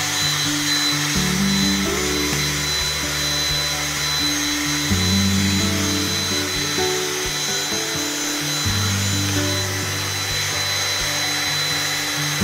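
Stick vacuum cleaner running steadily, a constant hiss with a thin high whine, as its nozzle is drawn over a plush teddy bear's fur; it cuts off suddenly at the end. Background music plays over it.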